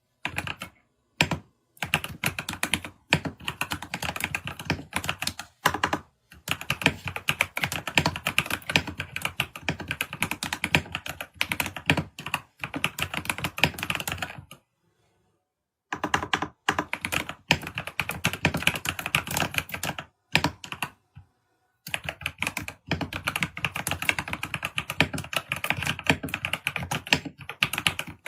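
Typing on a computer keyboard: fast, dense runs of key clicks in bursts, broken by short gaps and one longer pause of about a second and a half about halfway through.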